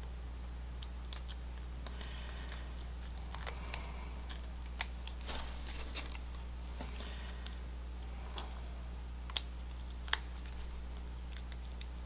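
Scattered light clicks and soft rustles of paper craft work: foam adhesive dots (Stampin' Dimensionals) being peeled from their backing sheet and pressed onto small die-cut cardstock birds, over a low steady hum.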